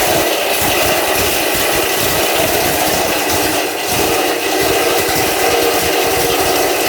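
Locally made Taiwan-type grinding mill running on trial: a loud, steady machine hum and whine with fast, uneven low knocking underneath.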